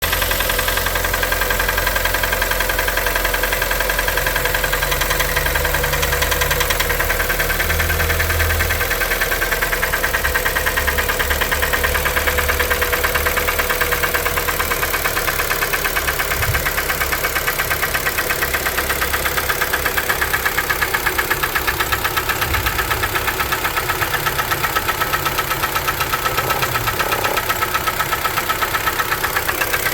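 2012 Kia Forte's 2.0-litre four-cylinder engine idling steadily with a rhythmic knock, the piston slap of a worn engine at about 166,000 km.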